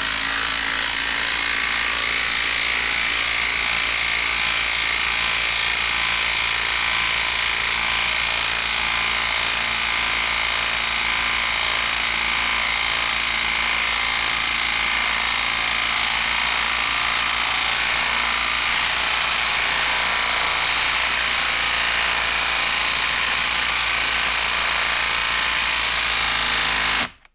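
Makita 12-volt brushed subcompact impact driver hammering a long TimberLOK lag screw into a log, a steady rattle of impacts without let-up that cuts off suddenly near the end as the screw is fully driven.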